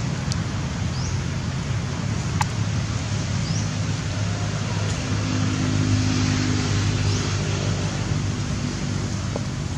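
Steady low hum of a running engine, swelling a little midway, with a few faint, short, high rising chirps and a couple of light clicks.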